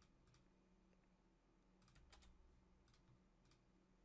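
Near silence with a handful of faint, sharp computer clicks from a mouse and keyboard spread through it.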